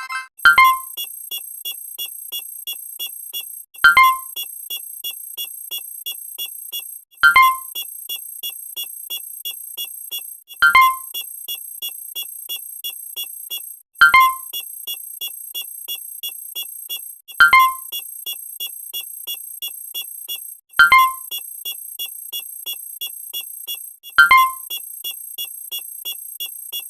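Synthesized electronic keyboard sound effect repeating about every three and a half seconds: each cycle opens with a sharp struck note, then a quick run of high ticks over a thin, high steady tone.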